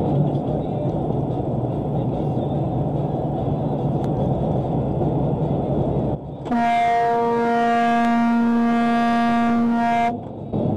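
Steady in-cab road and engine noise from a semi truck, then, about six seconds in, one long steady horn blast lasting about three and a half seconds, loud enough to cover the road noise.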